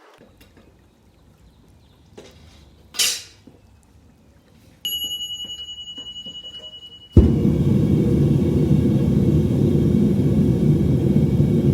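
A home metal-melting furnace burner starts suddenly with a loud, steady, low rumble and keeps running. Before it come a short hiss and a high, pulsing beep of about two seconds.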